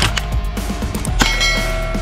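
Toy sniper rifle shooting at targets: a short click at the start, then about a second in a sharp clang whose metallic ring lasts over half a second, over background music.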